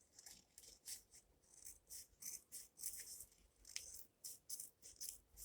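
Faint scissors cutting open a homemade paper squishy: a string of irregular crisp snips and paper scrapes.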